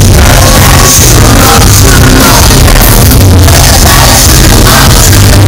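Live rock band playing very loud with a singer, heavy bass and drums filling the sound.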